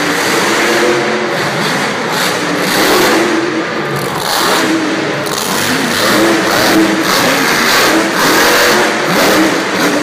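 Grave Digger monster truck's supercharged V8 revving hard, its pitch rising and falling again and again as the truck drives the dirt jumps.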